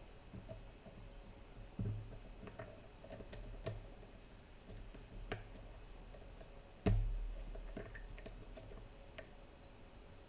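Scattered small metallic clicks and ticks of a pick working the pins of a 7-pin tubular lock under tension, with one louder knock about seven seconds in.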